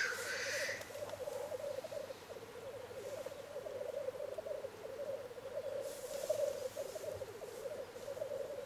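Black grouse males at a lek giving their continuous low, rapidly pulsing bubbling song. A loud hissing call ends about half a second in, and a fainter hiss comes near the middle.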